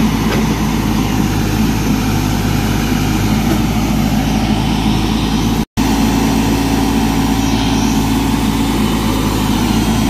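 Case 580-series backhoe loader's diesel engine idling steadily, a low, even running sound that breaks off for an instant a little under six seconds in.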